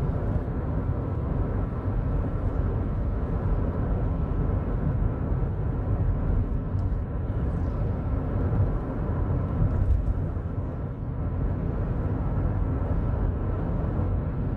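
Steady road noise heard from inside a moving car at highway speed: an even low rumble of tyres and engine.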